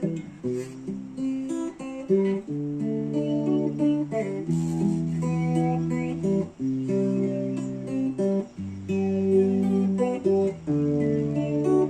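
Acoustic guitar strummed in a steady rhythm, the chords changing every second or two, with no singing.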